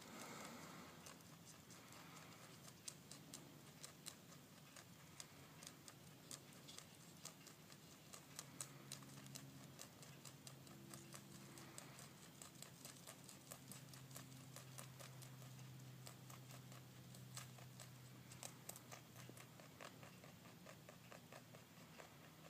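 A rabbit chewing leafy greens: faint, quick crunching clicks, steady all through.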